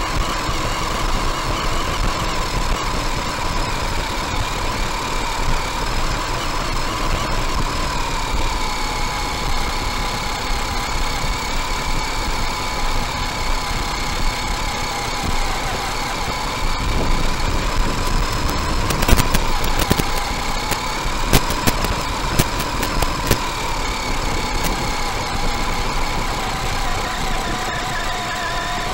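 Onboard sound of an RC buggy's electric drivetrain as it drives across grass: a steady motor and gear whine that drifts up and down in pitch with speed. A run of sharp clicks and knocks comes about two-thirds of the way through.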